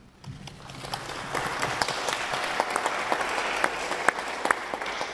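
Audience applauding, rising over the first second, holding, then dying away near the end.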